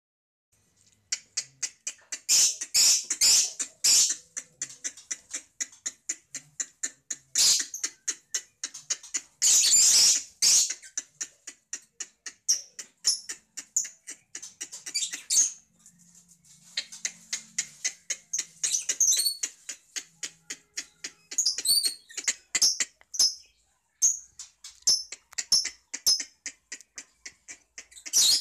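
Lovebirds chattering: rapid strings of sharp, high-pitched chirps and clicks coming in bursts, with a brief lull about sixteen seconds in.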